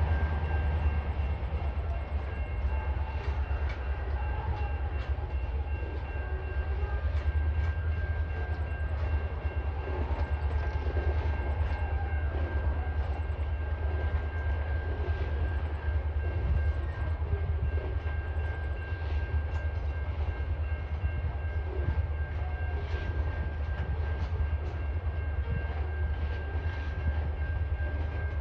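Container wagons of a TasRail freight train rolling past: a steady low rumble with scattered clicks and knocks from the wheels, and a faint steady high tone over it.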